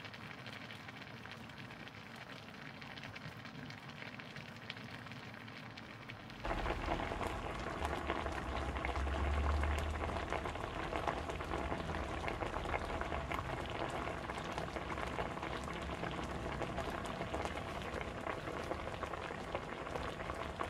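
Spicy soft-tofu stew bubbling in an earthenware ttukbaegi pot, a dense crackle of bursting bubbles. About six and a half seconds in, it cuts abruptly to louder bubbling with a low rumble underneath.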